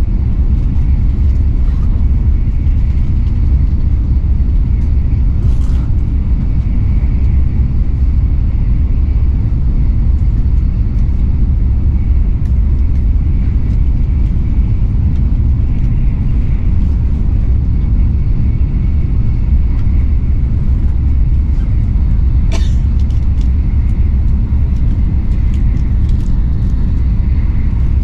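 Shinkansen bullet train running at speed, heard from inside the passenger cabin as a steady, loud low rumble, with two brief ticks.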